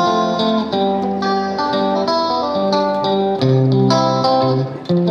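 Background music: a guitar plucking a melody, one note after another.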